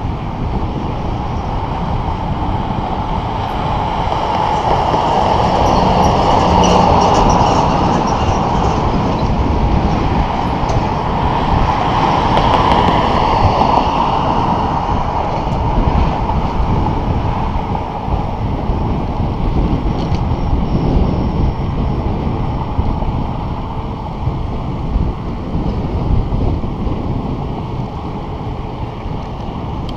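Wind rushing over the microphone of a bicycle-mounted camera while riding, with steady road and tyre rumble. It swells louder twice, the second time as a car passes close alongside.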